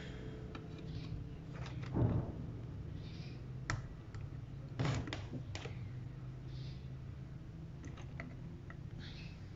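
Small scattered clicks and taps of multimeter probe tips touching diode leads on a circuit board during a diode check, with two louder knocks about two and five seconds in, over a steady low hum.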